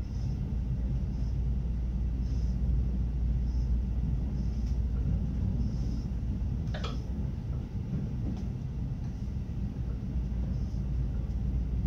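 Electric train running at speed, heard from behind the driver's cab: a steady low rumble, with a faint high hiss coming and going about once a second. A brief sharp squeal-like noise comes about two-thirds of the way through.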